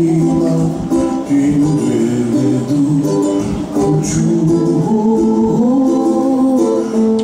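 Music: a song with singing voices over held instrumental notes.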